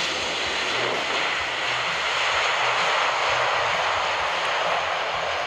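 Jet engine noise of a KLM Boeing 777 with GE90 turbofans rolling along the runway: a loud, steady rush that swells a little around the middle.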